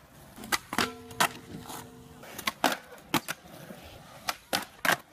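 Skateboard tricks on concrete: a series of sharp clicks and cracks from tail pops, deck and wheel impacts and landings, with rolling wheels between them. One hit about a second in leaves a ringing tone for about a second.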